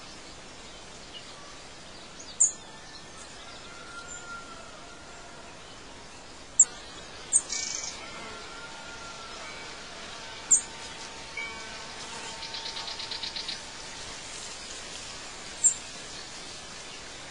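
Birds calling over a steady outdoor ambience: sharp high chirps every few seconds, some thin whistled notes, and a quick trill about twelve seconds in.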